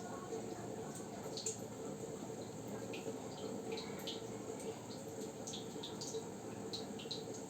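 Water trickling and dripping in a goldfish aquarium, with many small irregular splashes over a steady low hum.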